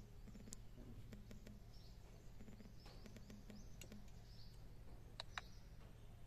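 Near silence: room tone with a low steady hum and faint, short bird-like chirps every second or so. Two small sharp clicks come about five seconds in.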